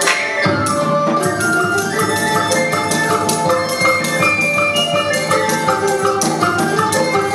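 Traditional Vietnamese water-puppet theatre music: quick struck melody notes over a steady drum beat. The low drums come in about half a second in.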